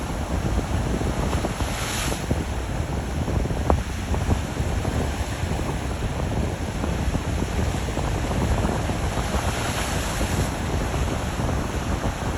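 Atlantic surf breaking against volcanic rocks: a continuous rush of churning water, with waves surging louder about two seconds in and again around ten seconds.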